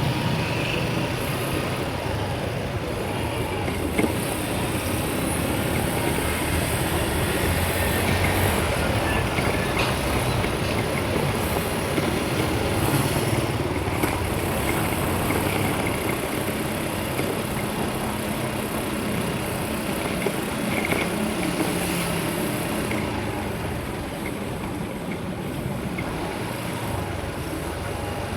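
Steady engine and road noise from a moving vehicle, with a low engine hum underneath; it eases off slightly near the end.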